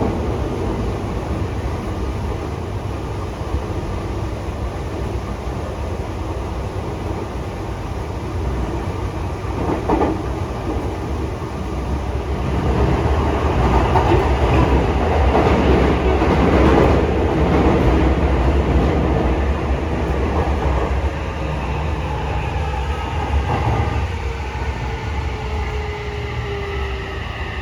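Toei 6500 series subway train running, heard from inside the car: a steady rumble of wheels on rail that swells for several seconds in the middle. Near the end, the whine of its SiC VVVF inverter and induction motors falls in pitch as the train slows.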